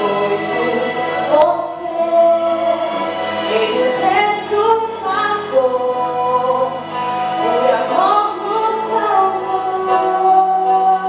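Voices singing a song with music, a female voice most prominent.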